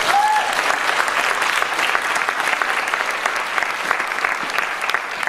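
Large audience applauding, a dense steady clatter of many hands clapping.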